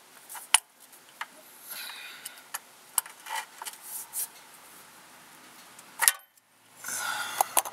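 Wrench clicking and clinking on the oil pan drain plug of a 2007 Dodge Ram 1500 as it is worked loose: scattered sharp metallic clicks, the loudest about six seconds in.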